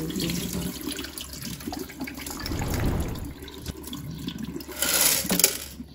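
Rinse water pouring and splashing from a small glass aquarium as it is tipped over a sink to drain it after washing the gravel, with a louder splash about five seconds in.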